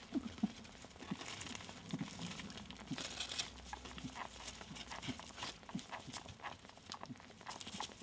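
Faint rustling and scuffling of straw nest bedding and fur as 14-day-old rabbit kits jostle under the doe to suckle, with many small irregular clicks and soft knocks.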